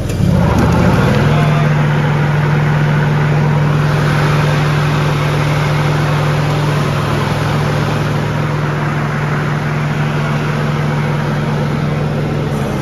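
Stiga Park Pro 16 ride-on mower's two-cylinder Vanguard engine running. It picks up to a higher, steady speed about a second in and drops back near the end.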